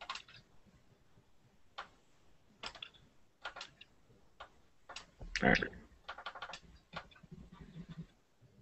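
Faint, irregular clicking of a computer mouse, a dozen or so single clicks at uneven intervals, with a slightly louder cluster about five seconds in.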